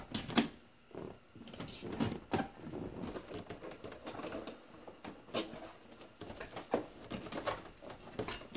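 Scattered, irregular light clicks and knocks of hands working on the parts behind a boat's dashboard gauge.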